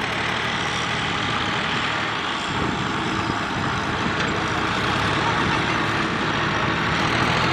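Two diesel farm tractors running steadily as they pull trailers loaded with rice sacks, the engine noise growing a little louder near the end as they come closer.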